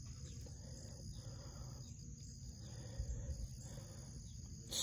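A steady outdoor chorus of insects, crickets by their sound, with a faint low rumble beneath and a brief hiss near the end.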